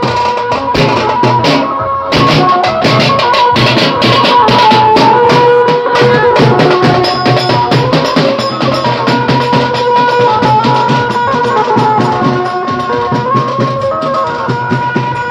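Procession band music: large bass drums beaten with sticks in a fast, steady rhythm, with a melody line held over them.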